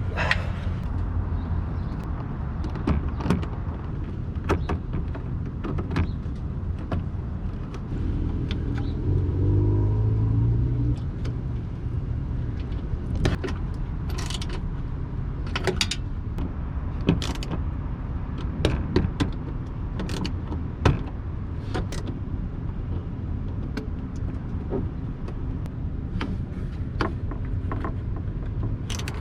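Metal hand tools clicking and clinking irregularly while a nut on the new ground cable is fastened, over a steady low rumble, with a brief louder hum about a third of the way through.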